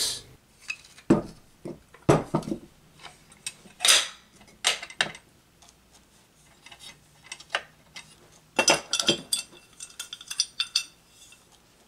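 Scattered metal clinks and knocks as an electric motor's end bells and stator housing are handled and fitted together, with a quick run of clinks near the end.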